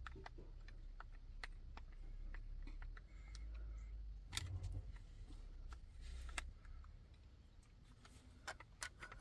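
Screwdriver clicking and scraping against a small plastic electrical box as it is wired: scattered light clicks, with a sharper knock about four and a half seconds in.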